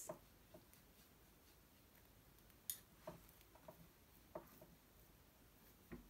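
Near silence: room tone with a few faint small taps and clicks.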